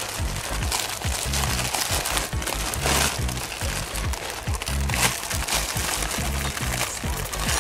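Background music with a repeating bass line, over a clear plastic parts bag crinkling as it is handled, with louder rustles about three and five seconds in.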